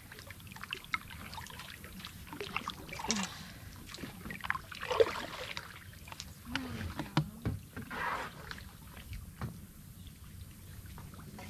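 Kayak being paddled: paddle strokes in the water and scattered light knocks and clicks of the paddle against the plastic hull.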